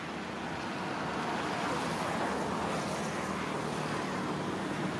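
Steady rushing background noise with no clear tone, swelling slightly over the first two seconds.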